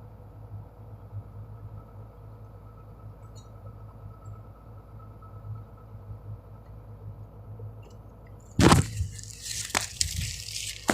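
SANY 210 excavator's diesel engine idling with a steady low hum, with no breaker hammering heard. About eight and a half seconds in, a sudden loud rustling noise breaks in, followed by a few sharp crackles.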